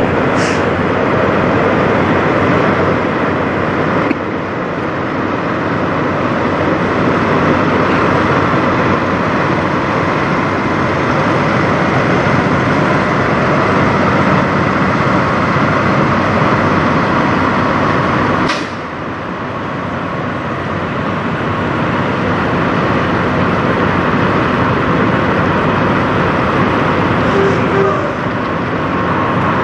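Peterbilt semi-truck's diesel engine running steadily as the loaded flatbed rig moves off and drives away.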